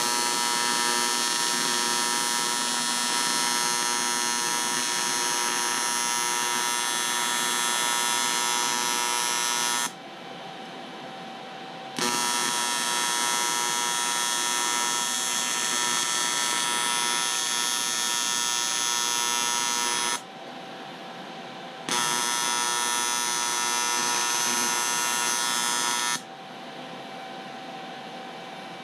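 An electric tool buzzing steadily in three runs of about ten, eight and four seconds, with a quieter hum between them.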